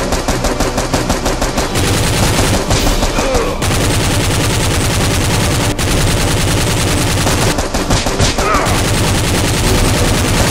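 Rapid automatic gunfire sound effect, long unbroken bursts of shots dubbed over toy blasters.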